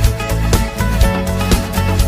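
Background music with a steady beat, about two beats a second, over a heavy bass line.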